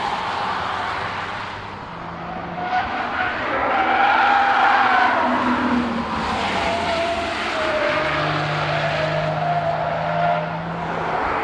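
A camouflaged BMW 4 Series Gran Coupe prototype driving past at speed on a race track, its engine note and tyre noise swelling as it goes by about four seconds in, then settling.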